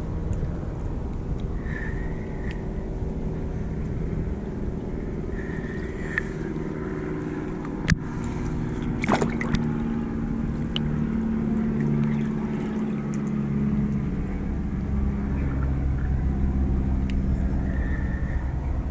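A motor running steadily with a low hum whose pitch shifts partway through. Water splashes and gurgles around the camera at the waterline, with a sharp click a little before the middle.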